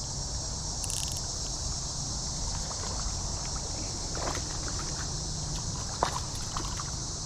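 Outdoor creekside ambience: insects keep up a steady high drone over a low, steady rumble, with a couple of faint ticks.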